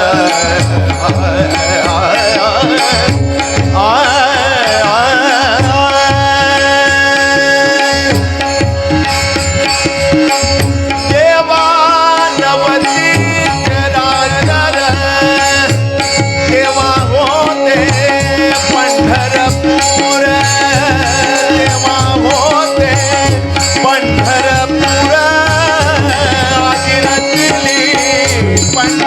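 Devotional Marathi abhang bhajan music: a voice sings a gliding, ornamented melody without clear words over steady held tones and a driving hand-drum rhythm.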